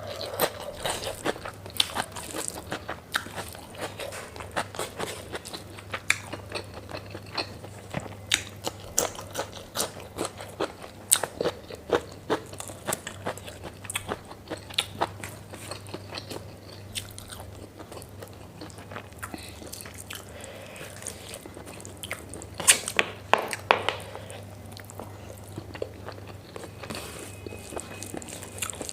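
Close-up eating sounds: a person chewing and biting pork fat and rice, with a steady run of short mouth clicks and crunches and a louder burst of bites a little after twenty seconds in.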